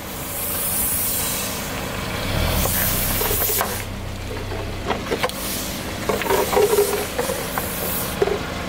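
A car idles while its tyre rolls slowly over a row of inflatable vinyl toys and flattens them. Air hisses out first, then come many short squeaks and crackles of the squashed plastic in the second half.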